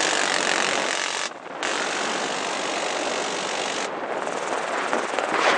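Door-mounted M134 minigun firing from a helicopter in two long continuous bursts: the first stops just over a second in, and the second starts after a short break and runs to about four seconds in. Helicopter noise is heard under and after the bursts.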